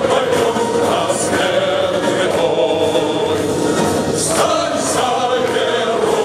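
A group of men and women singing together into microphones, backed by a wind band with saxophones and clarinets.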